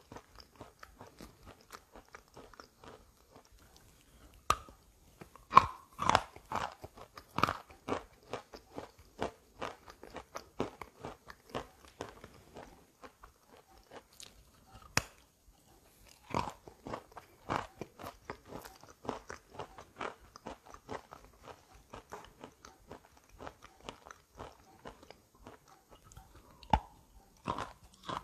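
Wet chalk coated in gray clay paste being bitten and chewed: a run of sharp crunches and chewing sounds, with the loudest bites bunched about five to eight seconds in, again around fifteen to eighteen seconds, and once more near the end.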